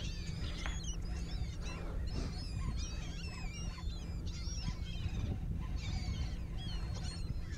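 A large flock of seabirds calling constantly, many short overlapping cries, as they feed over a surfacing school of fish. A steady low rush of wind and water lies underneath.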